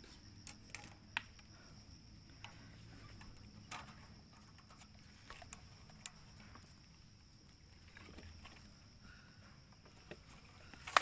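Faint handling sounds of a tape measure being laid and held along a green bamboo pole: scattered light clicks and rustles. A steady faint high tone runs underneath.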